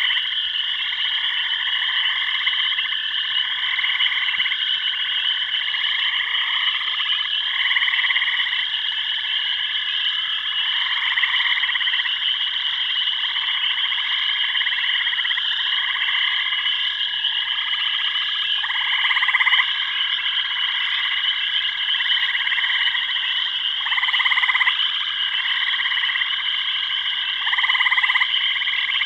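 Jungle chorus of frogs, calling in repeated croaking phrases every second or two over a steady high-pitched drone, with a few louder calls in the second half.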